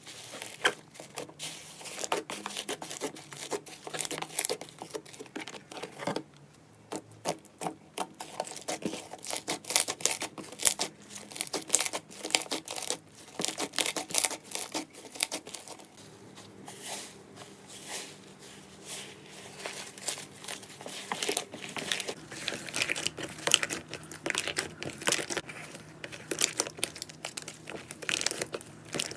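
Slime being squeezed and worked by hand, with dense crackling and popping clicks throughout, briefly quieter about six seconds in.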